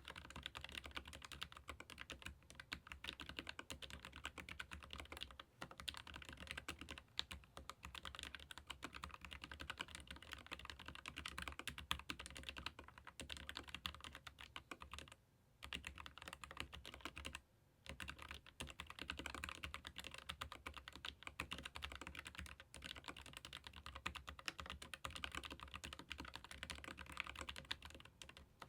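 Fast continuous typing on a Keychron K15 Pro Max low-profile mechanical keyboard with Gateron low-profile red linear switches: a dense stream of light key clacks, with two brief pauses a little past halfway.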